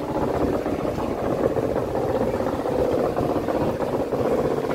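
Moored fishing trawler's diesel engine idling, a steady, even running sound.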